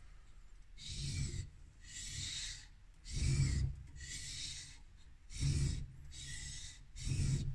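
Back of a laminated Japanese steel blade rubbed back and forth on a wet whetstone while it is flattened: seven gritty scraping strokes about a second apart, with every other stroke heavier.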